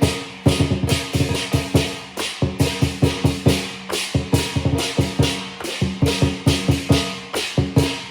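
Chinese lion dance percussion: a large drum beaten in fast, accented strokes over crashing cymbals, with a ringing gong tone held underneath.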